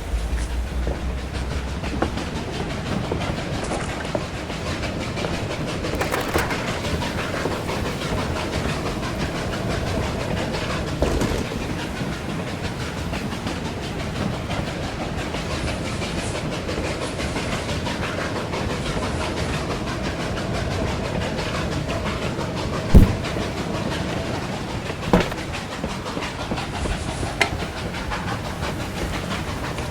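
Hand-made foley of a steam locomotive and its cars running along the track: a steady rumble and clatter. Three sharp knocks come in the last third, the first the loudest.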